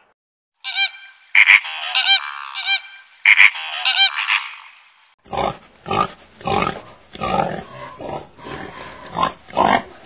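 Animal calls in two separate takes. First comes a run of high, pitched calls broken by two sharp clicks. Then, from about five seconds in, a series of short, lower calls repeats roughly twice a second.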